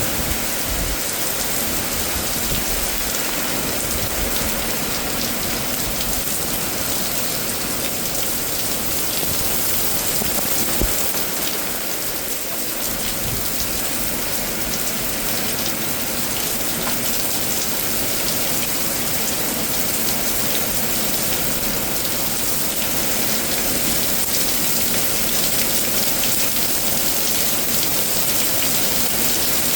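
Steady, heavy rain from a severe thunderstorm, falling as a dense, even wash of sound.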